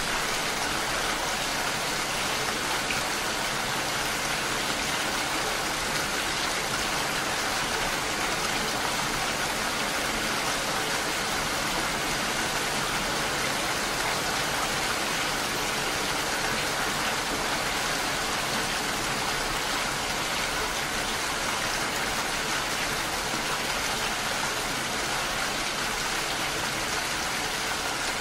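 Steady rain, an even hiss that holds unchanged throughout.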